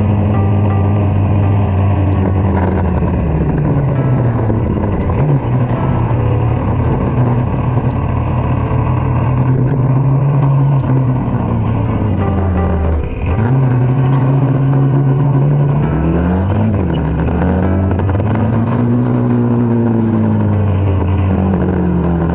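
Kawasaki Dominar 400 motorcycle's single-cylinder engine under way, its note climbing with the revs and dropping briefly at each gear change, several times over.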